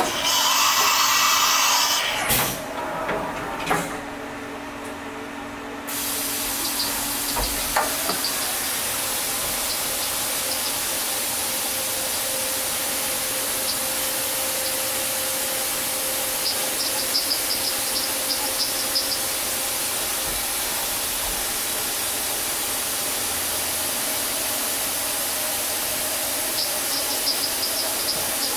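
Fadal CNC vertical machining center cutting under flood coolant: a steady hiss of coolant spraying over the work while the spindle runs a high-spiral high-speed-steel tap into the holes. A loud burst of noise and a few knocks come in the first four seconds, and the steady spray hiss takes over about six seconds in.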